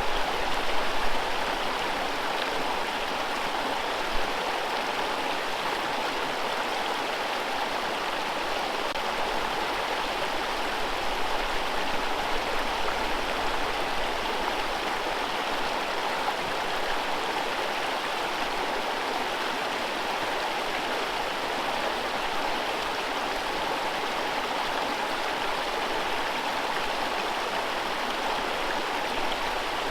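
A forest river running over whitewater rapids: a steady, even rush of water.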